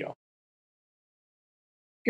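Dead silence with no room tone, after the last word of a man's voice cuts off right at the start.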